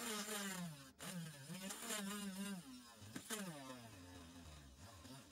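Small handheld rotary tool drilling into a soft plastic toy-car wheel, its motor whine wavering up and down in pitch as the bit loads and frees, with a brief drop about a second in.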